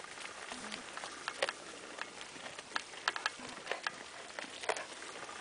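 Goat eating hay close up: irregular crisp crunches and rustles of dry hay as it pulls mouthfuls from the pile and chews.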